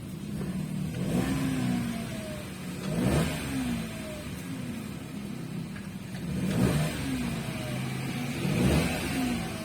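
Toyota Wigo's 1KR three-cylinder engine revved in about four short throttle blips, the pitch rising and falling each time. It is run up just after a new spark plug went in to cure a cylinder 1 misfire, and the throttle response feels lighter.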